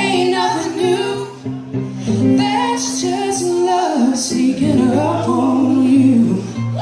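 Live song: female vocals singing over electric guitar and keyboard accompaniment.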